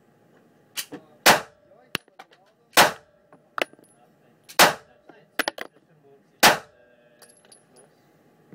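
9mm pistol fired four times at a slow, steady pace, one shot every 1.5 to 2 seconds, with fainter sharp bangs and clinks in between.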